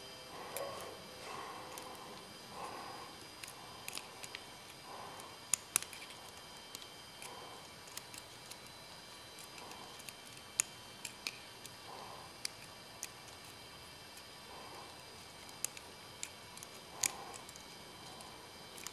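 Small butane torch flame hissing faintly and steadily as it heats the end cap of a model landing-gear air cylinder to free the cap, with a few sharp small clicks of metal pliers being handled.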